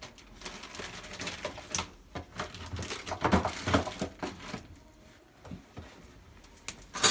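Small plastic caps and parts of a water ionizer being handled: a run of light, irregular clicks and rattles, busiest about three to four seconds in, with a louder clatter near the end.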